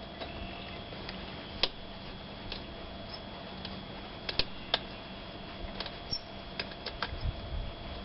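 Scattered light metallic clicks and ticks of an Allen key working the bolts out of an exhaust end cap, over a faint steady hum.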